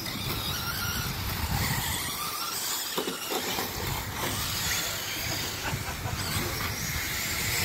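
Electric RC off-road buggies racing on a dirt track: faint rising and falling motor whines over a steady low rumble and hiss.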